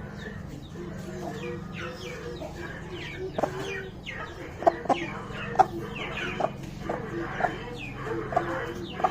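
Chickens clucking in a run of short repeated calls, with a few sharper, louder clucks in the second half.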